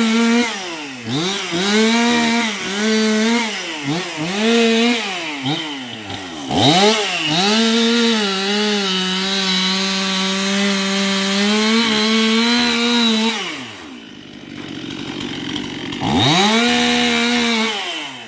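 Two-stroke chainsaw revved in short repeated bursts, then held at full throttle for about seven seconds with its pitch sagging slightly, as in a cut through wood. It drops back to idle about fourteen seconds in, then is revved once more near the end.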